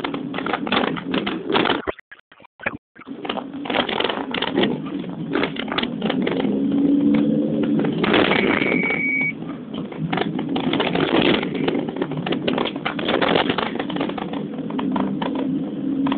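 Dense, rapid rattling and clicking over the rumble of a vehicle driving down a rough mountain road. The sound cuts out briefly about two seconds in.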